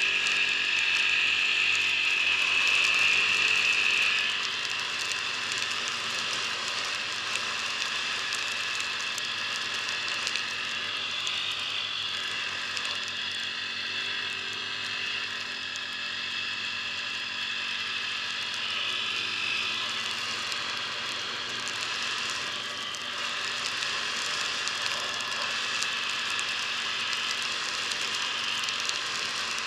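ATV engine running as the quad rides along a snowy road. About four seconds in, the engine note drops as the throttle eases off. After that it holds fairly steady, with small rises and falls.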